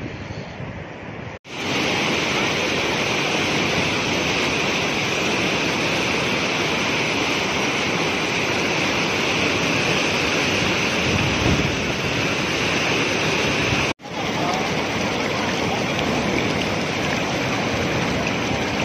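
Fast mountain river rushing over rocks in white-water rapids: a loud, steady roar of water. It starts suddenly a little over a second in, after a quieter opening, and breaks off for an instant about fourteen seconds in before going on.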